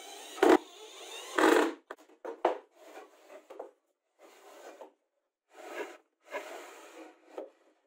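Chipboard router sled carriage slid by hand along the jig's side rails: a series of short wood-on-wood rubbing and scraping strokes. Two sharper knocks come in the first two seconds.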